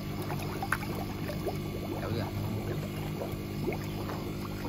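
A steady low motor hum, with light splashing and trickling water over it.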